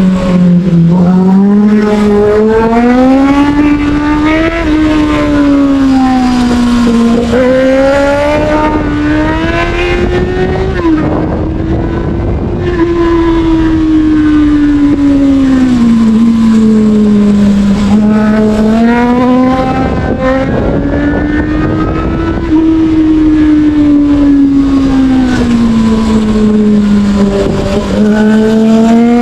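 Sport motorcycle engine heard while riding, revving up and easing off through a string of bends. Its pitch climbs and falls repeatedly, with sudden drops at the gear changes.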